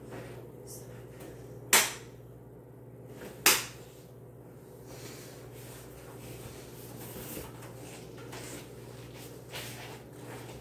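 Someone exercising on a tiled floor: two sharp knocks about a second and a half apart, then softer rustling as she moves and gets up, over a steady low hum.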